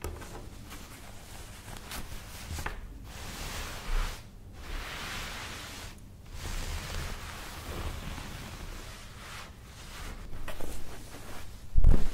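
Hands and fingernails rubbing and scratching over a thick terry-cloth towel, a soft rustling that comes in strokes with brief pauses between them. Near the end, a soft low thump as a second towel is laid down on top.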